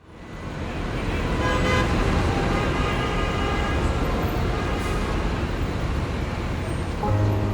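Busy city street traffic noise fading in, with short car horn toots a couple of seconds in. Guitar music starts near the end.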